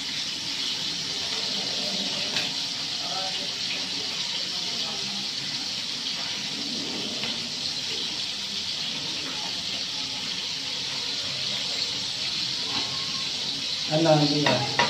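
Whole fish frying in hot oil in a pan: a steady sizzle. A voice breaks in briefly near the end.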